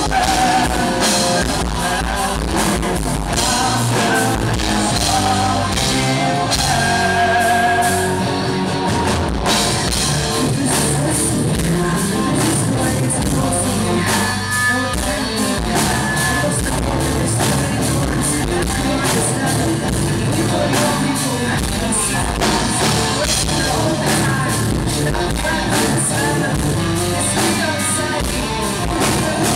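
Live rock band playing: drum kit, electric guitars and bass, with a lead vocal singing over them.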